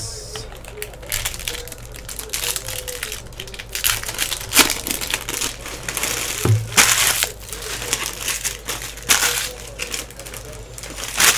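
Trading-card pack wrappers crinkling and tearing as packs are ripped open and handled, in a run of uneven rustles.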